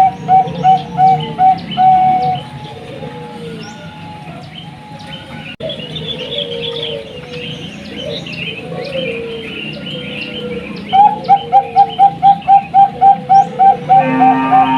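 Zebra dove (perkutut, Bangkok type) singing: a fast run of short, evenly repeated cooing notes. They fade to softer cooing mixed with high chirps from other birds, then return loud and quicker near the end.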